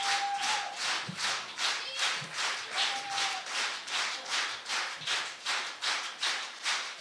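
Audience clapping in unison, a steady rhythmic applause at about three claps a second.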